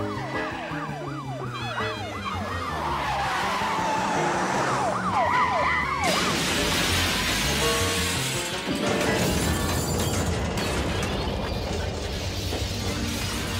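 Police car siren yelping, rising and falling a few times a second, over a film music score. About six seconds in, a loud crash with breaking glass as the car hits a truck carrying glass panes, followed a few seconds later by the rumble of an explosion.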